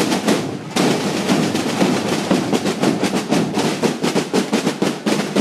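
A large corps of marching snare drums played together with sticks, beating a fast, dense rhythm. The drumming drops off briefly just under a second in, then comes back in full.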